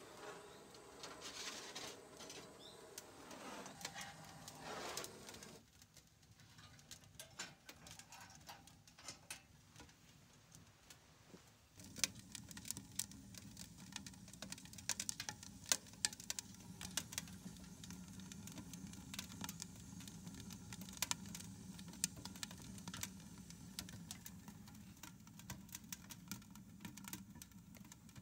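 Wood fire crackling inside homemade steel camping stoves, with irregular snaps and pops. A few faint squeaky, gliding sounds come in the first few seconds. About twelve seconds in, a low steady hum of the burning stove joins the crackle.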